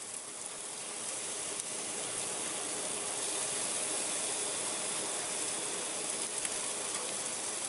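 Burgers and hot dogs sizzling on a hot gas grill, a steady hiss that grows a little louder about a second in, with a couple of faint clicks.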